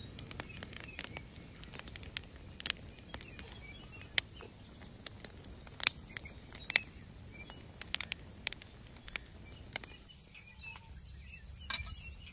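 Open wood fire crackling, with sharp irregular pops and snaps of burning branches, fewer and fainter after about ten seconds. Birds chirp in the background.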